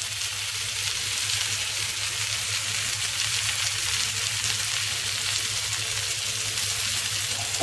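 Tuaran egg noodles and shallots frying in hot oil in a pan, a steady sizzle, with a low steady hum underneath.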